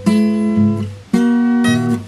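Two acoustic guitars playing an instrumental duet: a chord struck at the start and another just over a second in, each left to ring.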